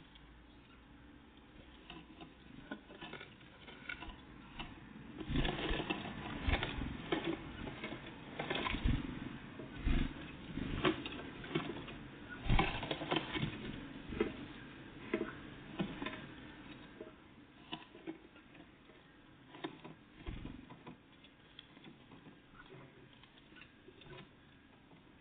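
Tits at a bird feeder pecking and tapping at seeds close to the microphone: irregular sharp taps and scrabbling clicks, busiest in the middle and sparser towards the end.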